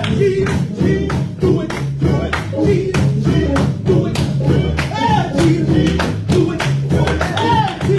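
Gospel music: a vocal group singing over a bass line and a steady beat of drums and tambourine.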